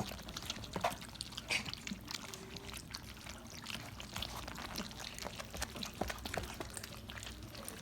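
Several young German Shepherd puppies lapping and slurping soft, wet food from a dish: a dense, irregular patter of small wet clicks and smacks.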